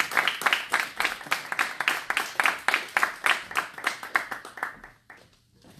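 Audience applauding, many individual claps, thinning out and dying away about five seconds in.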